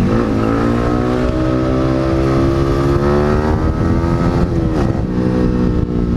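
Yamaha R15's single-cylinder engine through an SC Project aftermarket exhaust with its silencer fitted, accelerating under way. The revs climb steadily for about four seconds, drop sharply as it shifts up, then hold steady.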